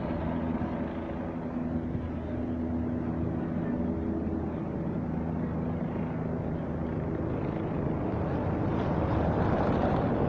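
Police helicopter's rotors making a steady drone with a low pitched hum, growing weaker after the first few seconds as it moves away. A broad rushing noise grows louder near the end.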